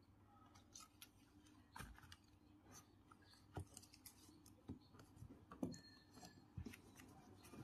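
Near silence broken by faint, scattered clicks and light rustles of aluminium foil tape being handled and pressed onto a refrigerator's refrigerant pipe.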